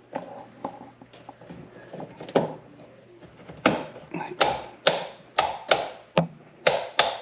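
A run of sharp taps or knocks on a hard surface, a few faint ones at first, then louder ones at about two a second from the middle on.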